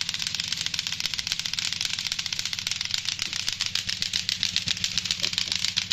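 Several sets of lato-lato clackers, pairs of hard plastic balls on strings, being swung at once: a dense, fast, overlapping clatter of clacks. A low steady hum sits underneath.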